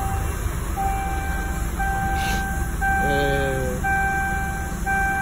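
Bus dashboard warning buzzer beeping steadily, about one beep a second, over the steady low rumble of the idling Scania diesel engine. A brief lower tone that falls slightly comes about three seconds in.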